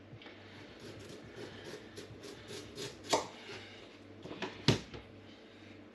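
A large kitchen knife cutting the tough outer skin off a swede (neep), with faint scraping and a few sharp knocks of the blade on the chopping board, the loudest a little before the end.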